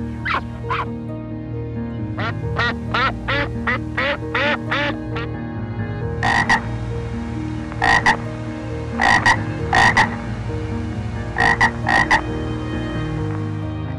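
Frogs croaking in shallow water. A quick run of short rising-and-falling calls comes first, then from about halfway on come louder, harsher croaks, mostly in pairs.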